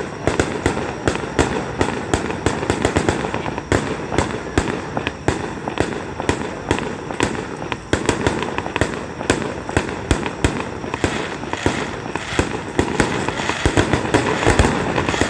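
Aerial firework shells bursting overhead in quick succession, sharp bangs several times a second.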